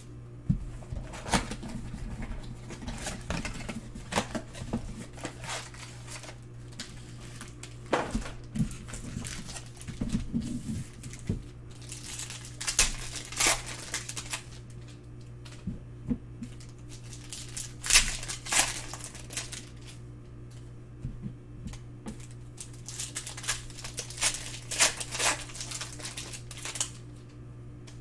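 Plastic wrapping crinkling and tearing as a trading-card box and its packs are ripped open, in irregular bursts of crackles, loudest about two-thirds of the way through. A steady low hum runs underneath.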